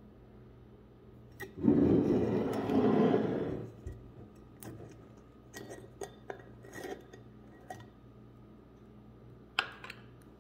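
Glass mason jar with a metal screw lid being handled and unscrewed. A loud scraping rub starts about one and a half seconds in and lasts about two seconds, followed by scattered light clicks and clinks of the lid on the glass and a sharper click near the end.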